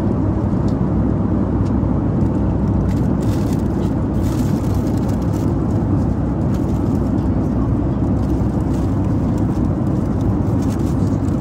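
Steady, loud low drone of an airliner's cabin noise, with a few faint clicks.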